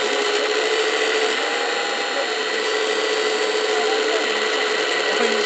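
Hydraulic pump of a 1:14.5 Wedico CAT 345 D radio-controlled excavator running with a steady electric whine as the arm and bucket work.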